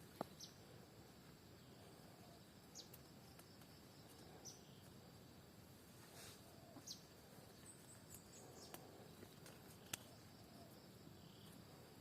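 Faint garden ambience: short, high, falling bird chirps every couple of seconds over a steady faint insect drone, with a few light clicks.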